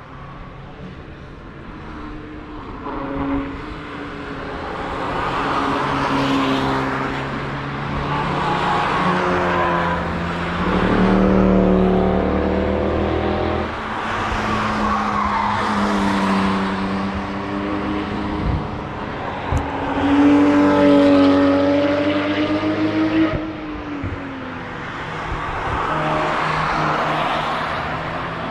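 Several cars passing one after another on a twisting stretch of race track, each engine note swelling, rising and falling in pitch as it goes by, with the next car already audible as the last fades.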